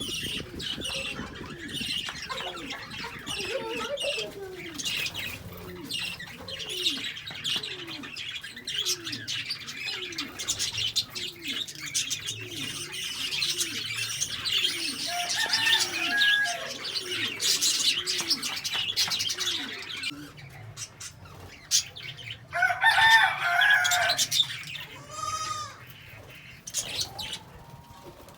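Lovebirds chirping continuously in quick, high twitters, with one loud harsh call burst about 23 seconds in. A low, repeated cooing runs underneath for much of the time, about once a second.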